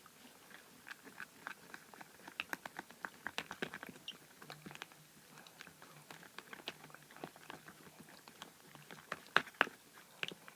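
Slime mixture being stirred and worked in a bowl: irregular small clicks of the stirring tool against the container and soft sticky squishes, busiest a couple of seconds in, with the sharpest clicks near the end.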